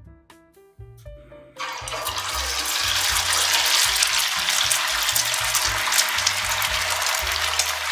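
Beaten egg poured in a thin stream into hot vegetable oil in a saucepan, sizzling loudly as it fries; the sizzle starts suddenly about one and a half seconds in and keeps going steadily.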